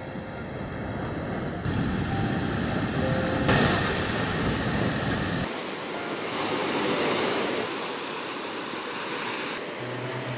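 Sea surf: waves breaking and washing up on a beach. The sound changes abruptly several times.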